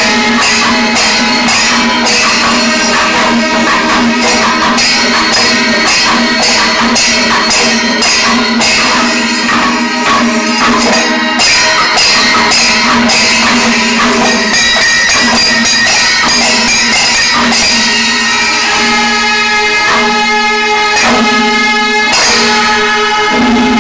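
Kerala panchavadyam ensemble playing loudly: timila hourglass drums and maddalam barrel drum beaten by hand, with ilathalam cymbals clashing in a fast steady rhythm over a long held horn tone.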